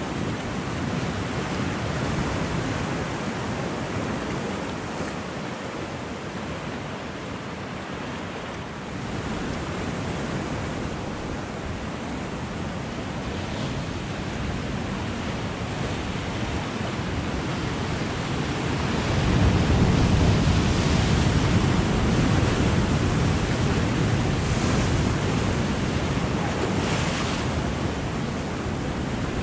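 Ocean surf breaking and washing over rocks, a steady rushing wash. A bigger wave breaks about two-thirds of the way through, with a louder, deeper rush.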